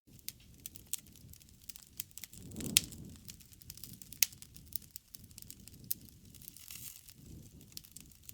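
Wood campfire crackling, with many scattered sharp pops over a low rumble. The two loudest pops come about a third of the way in and about halfway.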